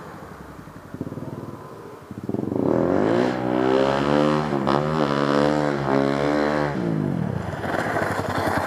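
Small motorcycle engine revving. It runs low at first, then climbs in pitch about two seconds in. It holds high with a wavering pitch for several seconds and drops off near the end.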